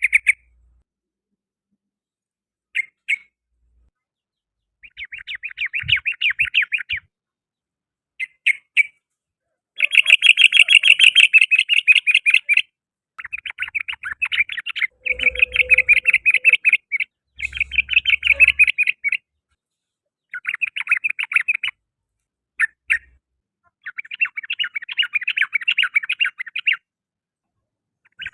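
Yellow-vented bulbul (trucukan) singing in rapid chattering phrases, each lasting up to about three seconds, separated by short pauses.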